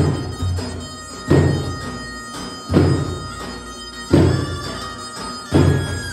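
Turkish wedding music in davul-and-zurna style, played live on a Korg Pa3X Pro arranger keyboard: a reedy, zurna-like melody held over heavy drum beats about every second and a half.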